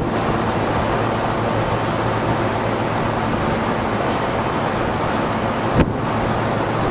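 A yacht under way: a steady rush of wind and water over a low, even engine drone, with a single sharp click near the end.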